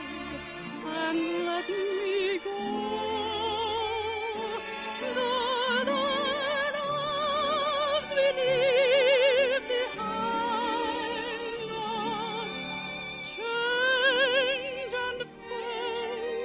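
Operatic soprano singing with orchestra, holding long high notes with a wide vibrato; the voice swells loudest about halfway through and again near the end.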